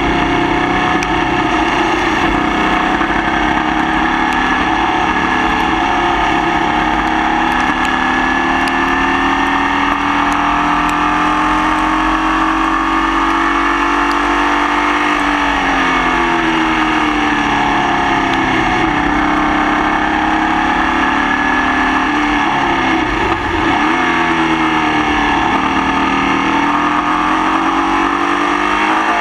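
Formula Vee race car engine heard onboard, running hard with a misfire. Its note climbs slowly for about fourteen seconds, drops sharply about halfway through as the car slows, then rises and falls several more times.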